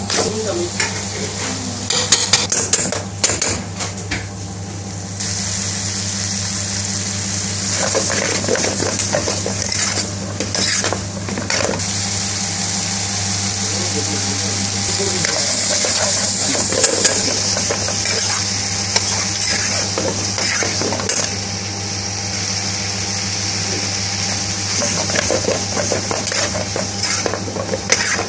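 Lamb curry sizzling in a metal pan over a gas flame while a long metal spoon stirs and scrapes it and the pan is tossed, with sharp clanks of metal on metal now and then. A steady low hum runs underneath.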